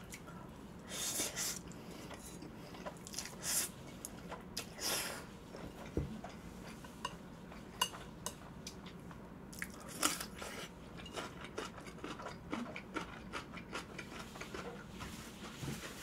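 Close-miked eating sounds of Chapagetti jjajang instant noodles: a string of wet chewing and mouth clicks, with several louder slurps.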